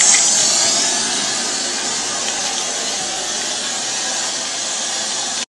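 Steady, fairly loud hiss with no pitch, easing slightly after the first second, that cuts off abruptly near the end.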